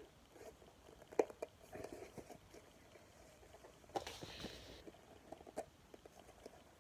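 Faint handling noise from a cardboard box being picked at to get it open: light clicks and taps of fingers on cardboard, a sharper tick a little past a second in, and a short scratchy scrape about four seconds in.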